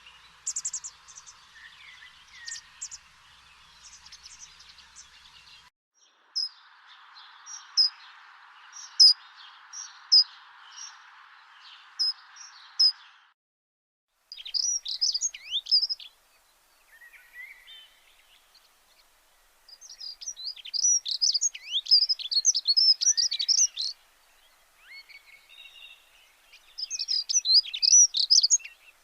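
Small birds chirping in quick runs of short, high, downward-sweeping calls, in bursts with pauses between. A steady hiss lies under the first half and cuts off abruptly.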